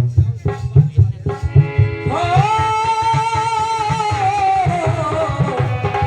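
Devotional kirtan music with hand-drum strokes. About two seconds in, a singer's voice enters on one long held note that slides down near the end, with the drumming running on underneath.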